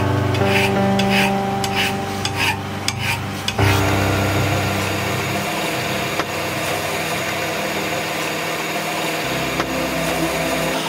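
A hand file scraping the edge of a small metal plate clamped in a vise, about two strokes a second. About four seconds in, a drill press takes over, its bit cutting steadily through the metal plate.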